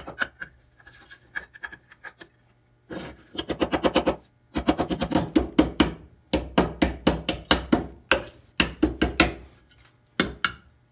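Screwdriver scraping and chipping set plaster away from a cast zinc piece, in several bursts of quick strokes, about eight a second.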